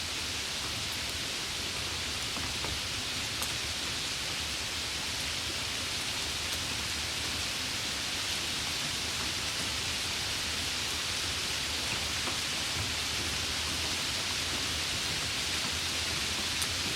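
Light rain falling steadily, an even hiss with a few faint drop ticks now and then.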